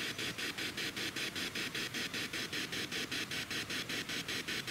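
Spirit box sweeping through radio stations: a steady static hiss chopped into even pulses, about eight a second.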